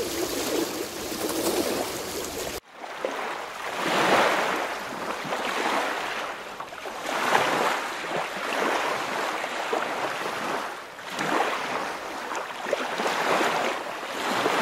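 Small lake waves washing and lapping at the shore, the water noise swelling and falling back every two to three seconds.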